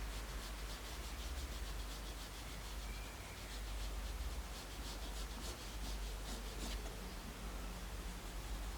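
Graphite pencil (5B Tombow MONO 100) scratching across printing paper in quick, repeated hatching strokes, which thin out about two-thirds of the way through.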